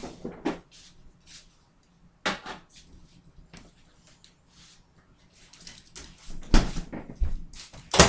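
Kitchen handling noises from someone moving around off to the side: scattered light knocks and clatters, with a louder thump about six and a half seconds in, like a door or cupboard being shut.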